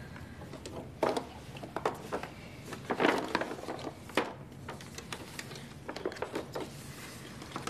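Soft knocks and rustles of people moving and handling things, at irregular moments (about a second in, around three seconds in, and again just after four seconds), over a low steady room hum.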